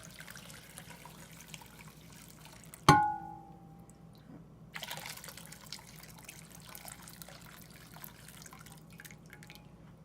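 Hot water being poured into a wash basin of cold water and swished, with one sharp ringing clink of a hard vessel about three seconds in, the loudest sound.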